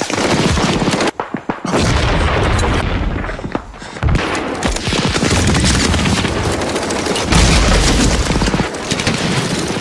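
Blank rifle and machine-gun fire from a battle reenactment, dense and almost continuous, with a heavier boom about seven seconds in.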